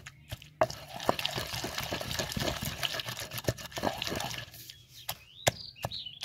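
Wooden pestle pounding and grinding raw green mango, onion and green chilli in a stone mortar: a wet, dense crushing for most of the time, then a few separate knocks of the pestle near the end.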